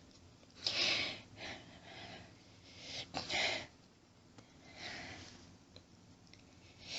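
A person's hissing breaths and sniffles in about six short bursts with pauses between, the loudest about a second in and three seconds in. This is the shaky, catching breathing of someone fighting the tickle of a coming sneeze.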